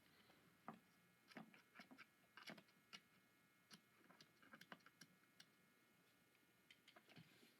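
Faint, irregular clicks and taps from a plastic toy robot being handled, with quiet gaps between them.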